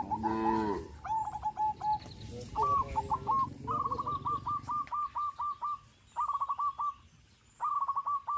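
A cow moos briefly at the start. Then a bird gives several bursts of rapid, evenly repeated calls, high and chattering, with short gaps between the bursts.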